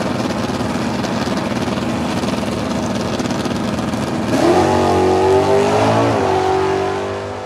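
A loud engine running, a dense rushing noise at first. About four seconds in, it revs up to a higher pitch, holds there, then starts to fade near the end.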